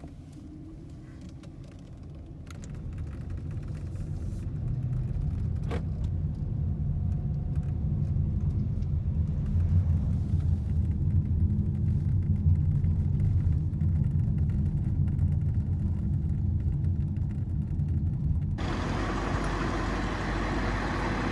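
Low, steady rumble of a motor vehicle on the move, building over the first few seconds. Near the end it changes abruptly to a broad, even rushing noise.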